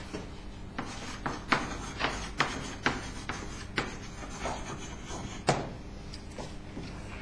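Chalk writing on a blackboard: an irregular run of sharp taps and short scratches as letters are chalked, with one louder tap about five and a half seconds in.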